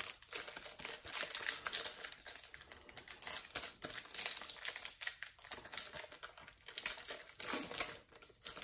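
Foil wrapper of a Donruss Optic trading-card pack crinkling and tearing as it is ripped open and handled: a dense run of fine crackles.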